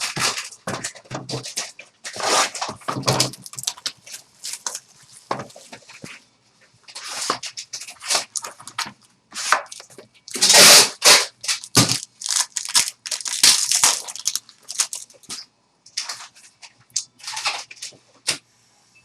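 Trading-card packaging being torn open and handled: irregular bursts of tearing, crinkling and rustling, the loudest about ten seconds in.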